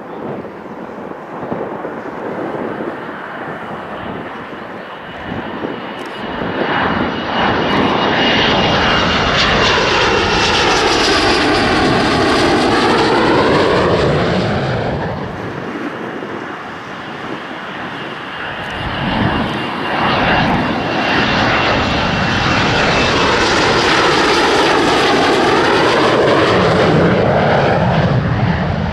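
Two RAF Panavia Tornado GR4 jets, each with twin RB199 turbofans, pass one after the other. Each swells to a loud peak, with a high thin whine ahead of it, then fades. Near the end another low jet rumble begins to build.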